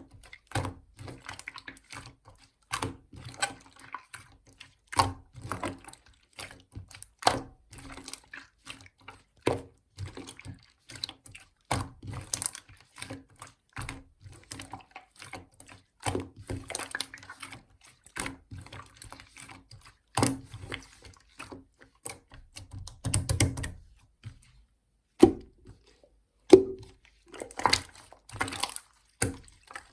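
Clear slime being squished, pressed and folded by hand, making irregular sticky clicks and pops, with a short quiet gap past the middle.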